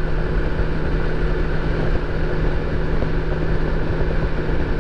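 BMW K1600 motorcycle's inline-six engine cruising steadily at highway speed, a constant hum under a steady rush of wind and road noise.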